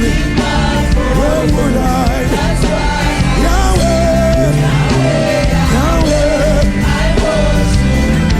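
Live gospel worship music: a full band playing, with a singer's drawn-out lines sliding up and down in pitch.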